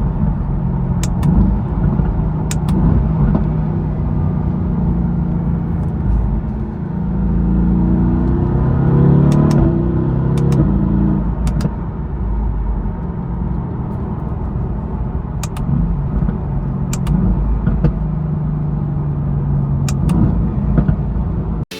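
Mercedes-AMG GT S's twin-turbo V8 running, its pitch rising as it accelerates about a third of the way in, with a few sharp clicks along the way.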